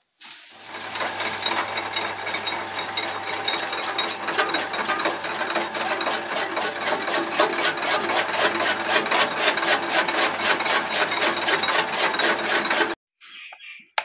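Electric chaff cutter chopping dried fodder. The motor gives a steady low hum under a rapid, even chopping of the flywheel-driven blades, and the sound cuts off suddenly near the end.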